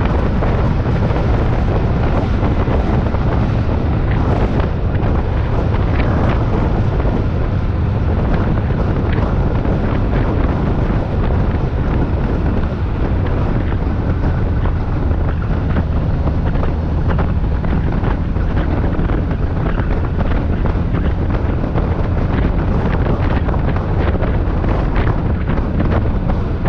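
Wind buffeting the microphone over a steady low rumble, with frequent small crackles.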